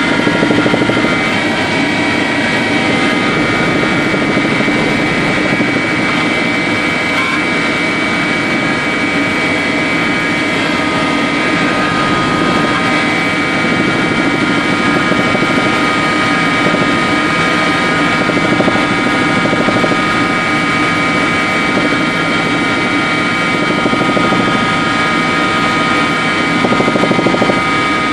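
Helicopter cabin noise in level flight: steady engine and rotor noise with several steady high whining tones.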